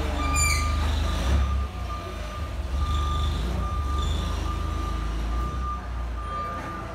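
Forklift's warning beeper sounding a steady run of evenly spaced single-tone beeps over a low rumble.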